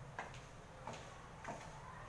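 18 cm stiletto heels striking the floor in walking steps: three sharp clicks about two-thirds of a second apart.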